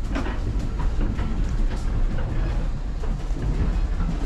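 Heritage railway train running on the track: a steady low rumble with light clicks of the wheels over the rail joints.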